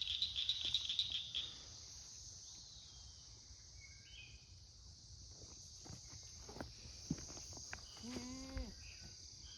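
Insects trilling steadily outdoors. A fast, loud rattling stops about a second and a half in, a few light knocks follow later, and a short pitched call comes near the end.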